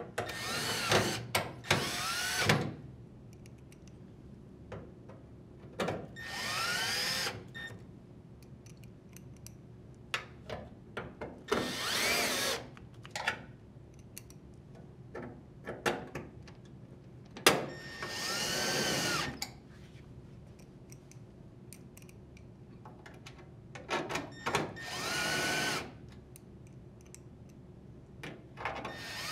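Cordless drill driver with a Phillips bit driving screws into a washer's sheet-metal panel: about six short runs of the motor, each rising and falling in pitch, with pauses and small clicks between them.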